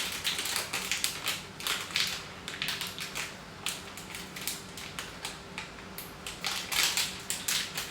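Maine coon cat crunching dry cat treats: a quick, irregular run of crisp crackles, with a faint steady hum underneath.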